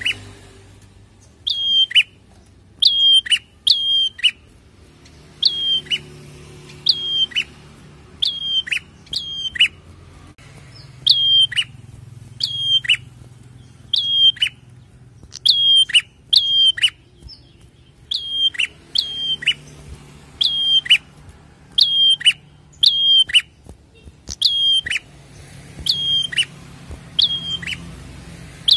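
Caged tailorbird (prenjak) calling loudly and over and over: each call is a short high whistle that drops in a steep downward sweep. The calls come about one a second, often in quick pairs or threes.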